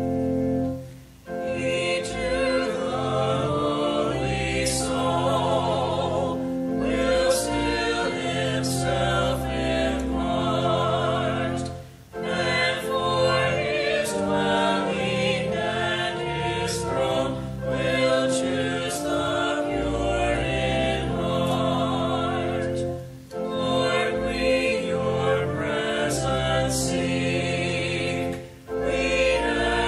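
Choir singing a hymn with organ accompaniment, in long held phrases separated by short breaths between lines.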